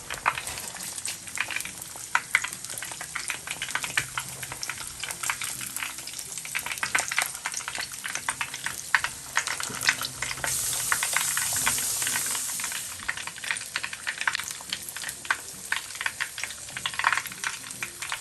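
Chicken wings deep-frying in hot oil, crackling steadily with many sharp pops. A steadier, louder hiss rises for about two seconds past the middle.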